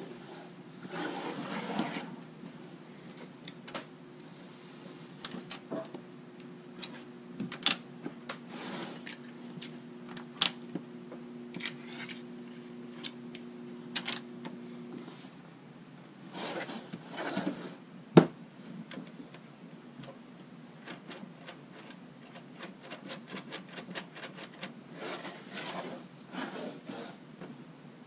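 Plastic LEGO bricks clicking and clattering on a wooden table as pieces are handled and pressed together, in irregular sharp clicks and short rattles, with one louder snap a little past halfway. A steady low hum underneath stops about halfway through.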